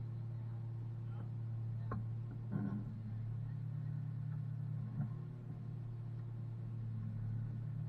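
Steady low drone of the heavy-rescue rotator tow truck's diesel engine idling, heard from inside its cab. A few faint knocks come about two, two and a half, and five seconds in.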